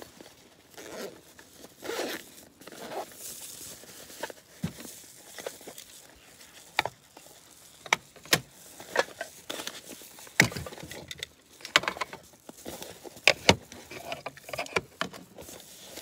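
Nylon stuff sack rustling as gear is pulled out of it by hand, with irregular sharp clicks and knocks as small items, a metal tin among them, are set down on a slatted camp table; the loudest knocks come in the second half.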